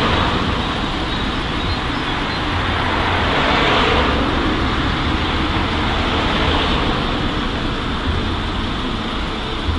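Road traffic on a nearby street: a continuous rush of tyres and engines, swelling as a vehicle passes about a third of the way in.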